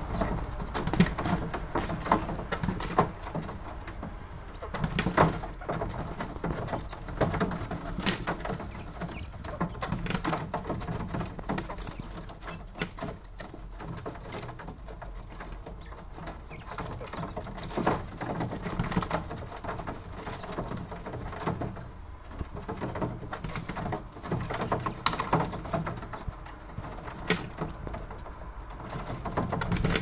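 Domestic quails pecking at green onion and moving about on a wire-mesh cage floor: irregular sharp taps and scratches, some louder than others.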